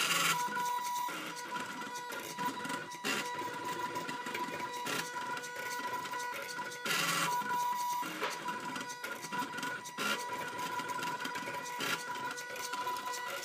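Stepper motors of salvaged CD/DVD-ROM drive sleds in a homemade Arduino pen plotter, running with a steady high whine as they drive the pen carriage. Several short, harsher rasps break the whine, the longest about seven seconds in.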